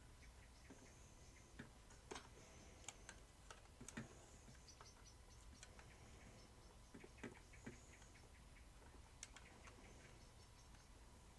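Near silence with faint, irregular small clicks and taps, typical of hands handling small plastic toy parts.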